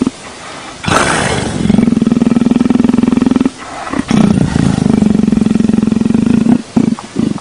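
Leopard making a deep rumbling, purr-like drone while its head is scratched, in stretches of a second or two. A loud breath about a second in, and short choppy rumbles near the end.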